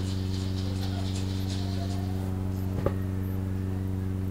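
Steady low electrical hum with a stack of evenly spaced overtones, picked up through the microphone and sound system, with one faint short sound about three seconds in.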